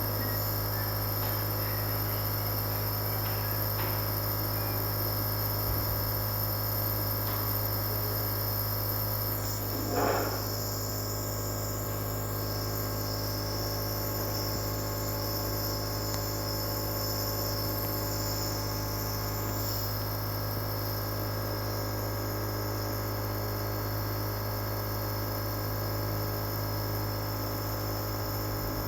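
Compressor nebulizer running with a steady buzzing hum. A brief louder sound stands out about ten seconds in.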